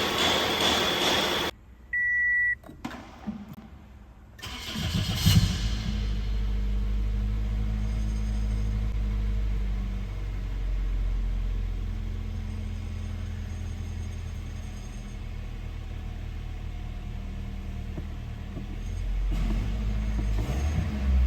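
A freshly overhauled Toyota 1ZZ-FE 1.8-litre four-cylinder engine starting. After a short beep, it cranks and catches about four to five seconds in, then settles into a steady idle, with a slight rise in engine speed near the end.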